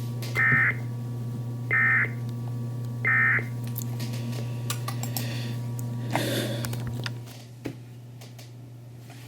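Emergency Alert System end-of-message code on a weather radio broadcast: three short, identical bursts of warbling data tones about 1.3 seconds apart, marking the end of the flash flood warning. A steady low hum runs underneath, a short hiss comes about six seconds in, and the background then drops quieter.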